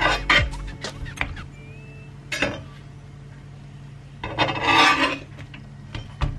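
Metal slotted spatula clicking and scraping against a cast iron skillet as it slides under the burritos to turn them. There are a few sharp clicks at the start, a short scrape about two and a half seconds in, and a longer scrape around four to five seconds in.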